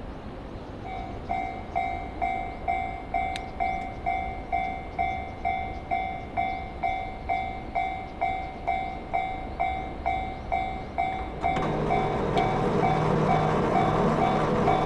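A Japanese railway level-crossing warning bell starts ringing about a second in, an even electronic ding a little over twice a second. Near the end the rumble of an approaching JR Chuo Main Line train rises under it.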